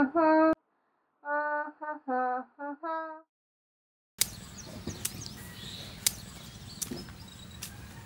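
A girl humming a tune in short held phrases, breaking off about three seconds in. After a second of silence, outdoor ambience comes in, with birds chirping and occasional sharp clicks.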